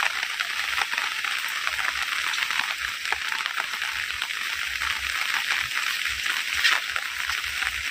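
Heavy rain falling, a dense steady patter of many fine drop ticks.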